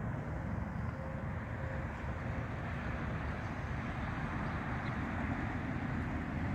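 Steady low rumble of outdoor ambient noise with no distinct event.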